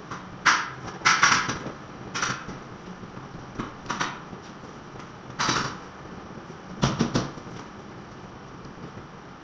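Irregular scrapes and knocks of tools working on a wall, about seven short strokes spaced unevenly, over a steady background hiss.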